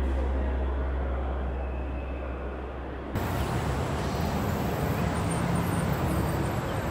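Ambient music with a deep low drone fading out, then a sudden cut about three seconds in to wet-street traffic: a steady hiss of tyres on the wet road, with a low engine hum from a passing vehicle.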